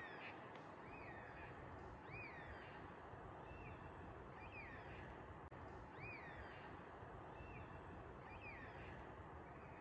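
Masked lapwing calling: single arching notes repeated about once a second, some louder and some fainter, over a steady background hiss.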